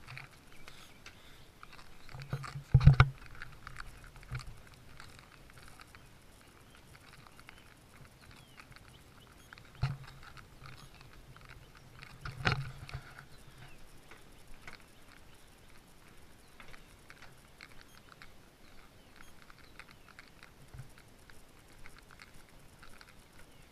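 Footsteps and camera-handling knocks while walking along a submarine's slatted deck: three louder thumps, about three, ten and twelve and a half seconds in, over faint rustling and crackle.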